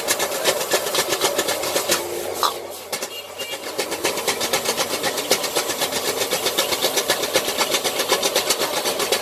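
Metal spatulas striking and scraping rapidly on a flat iron griddle as noodles are stir-fried, about six to seven clacks a second, over a steady hum.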